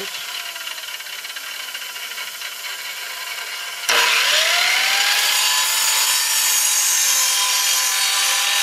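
Radial arm saw cross-cutting a wooden board. About four seconds in the blade bites into the wood with a sudden loud cutting noise, and the motor's whine dips under the load, then rises back and holds steady as the cut is pulled through.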